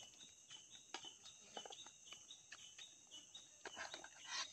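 Steady high buzz of forest insects with short chirps repeating every few tenths of a second, over light clicks and scrapes of spoons in plastic food containers, with a louder scrape near the end.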